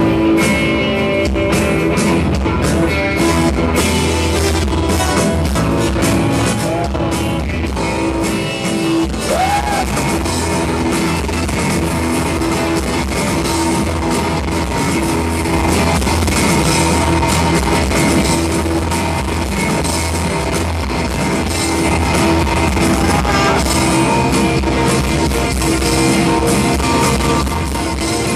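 A rock band playing live: guitars ringing over a drum kit, with the drum hits busiest in the first several seconds and sustained guitar chords carrying the rest.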